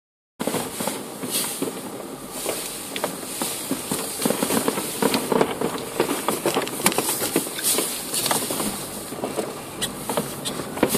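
Many fireworks crackling and banging at irregular moments without pause, heard from inside a moving car over its engine and road noise.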